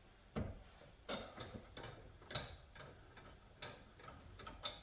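A string of light, irregular clicks and knocks, about nine in all, from metal tools and parts being handled at a workbench vise, with the sharpest knock near the end.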